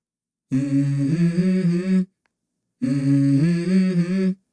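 Song intro: a voice humming a short melody in two phrases of about a second and a half each, with silent gaps between them.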